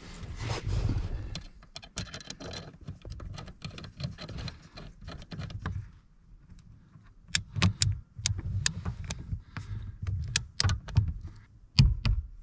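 Socket wrench ratcheting in short strokes as the pinch bolt on the intermediate steering shaft's yoke is run down, first as runs of fine clicks and then, in the second half, as sharper separate clicks while the bolt is tightened toward its 22 lb ft torque.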